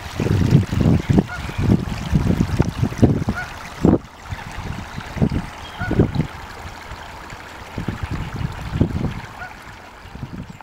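Wind buffeting a camera's built-in microphone in irregular low rumbling gusts, over the steady rush of a flowing stream.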